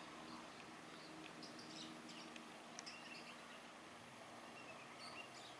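Near silence with faint, scattered bird chirps and a faint low steady hum.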